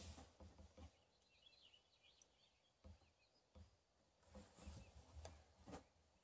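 Near silence: faint rustling and a few soft knocks as the scoped air rifle is carried through grass, with a few faint high chirps about a second and a half in.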